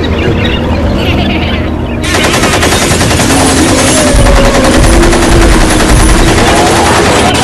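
Automatic rifle firing in rapid, continuous bursts, starting about two seconds in, as a dubbed film sound effect.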